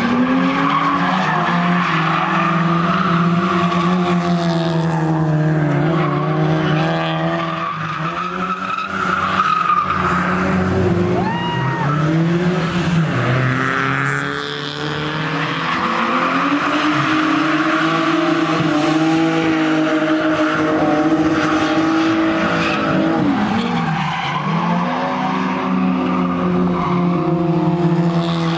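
Nissan 350Z's 3.5-litre V6 revving hard, the revs repeatedly climbing and falling as the car is drifted, over a continuous screech of sliding tyres. The engine and tyre noise eases briefly twice, about a third and halfway through.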